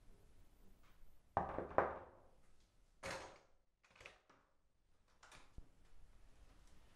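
Interior door: two sharp thuds close together, then the door opening with a brief swishing sound and a few fainter clicks.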